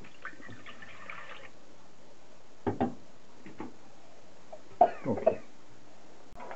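Apple juice poured from a glass jug into an enamel pot, a splashing pour for about a second and a half. A few short knocks follow, the loudest about five seconds in.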